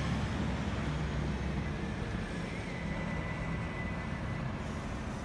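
Steady low rumble of background vehicle noise, with a faint high whine for about a second and a half midway.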